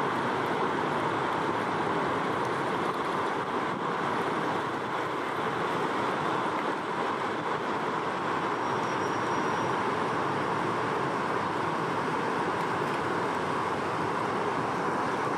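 Bow Falls: river water pouring over the falls in a steady, even rush with no breaks.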